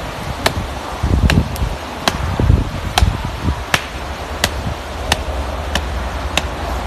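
A steady series of sharp knocks, about three every two seconds, like rhythmic chopping or striking, over wind noise on the microphone.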